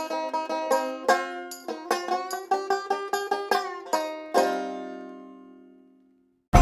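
Solo banjo picking a quick run of plucked notes in a country song's intro, ending about four seconds in on a chord that rings out and fades away. Just before the end, the full band comes in loud.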